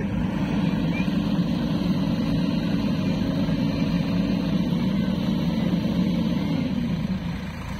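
Sonalika tractor's diesel engine running steadily under load as it pulls a loaded soil trailer; the hum drops away near the end.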